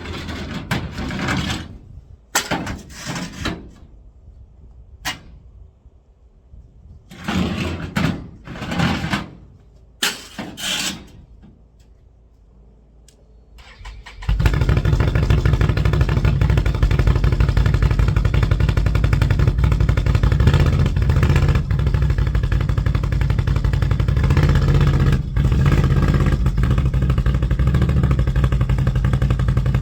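Several short, noisy bursts with gaps between them, then an engine starts about fourteen seconds in and keeps running steadily.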